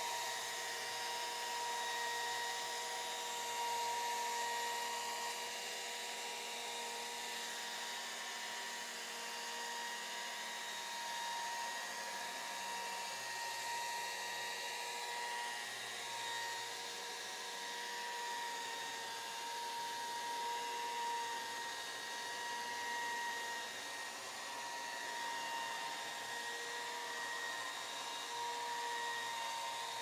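Electric chainsaw on a chainsaw mill running steadily as it rips lengthwise through a log to cut a board, wound forward by a remote crank feed. It gives a constant whine that wavers only slightly in pitch.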